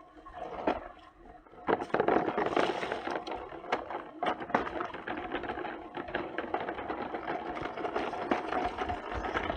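Small electric motor and gearbox of a toy construction vehicle whirring, with rattling clicks; it starts up about two seconds in and runs on steadily.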